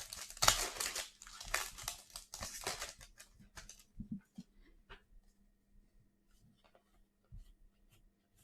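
Crinkling and rustling of a trading-card pack wrapper being handled and torn, dense for about three seconds, then a few light clicks and taps that thin out to almost nothing.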